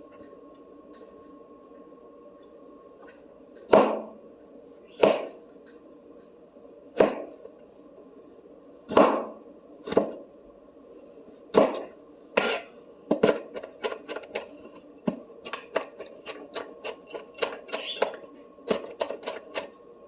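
Kitchen knife chopping on a cutting board: single chops a second or two apart at first, then a quicker run of several chops a second from about 13 seconds in.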